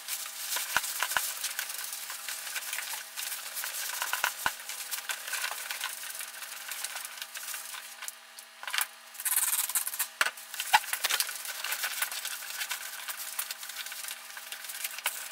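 Paper towel and cloth rag rubbing and wiping over the wet wooden stock and metal of an SKS rifle, cleaning off window cleaner, with scattered light knocks and clicks.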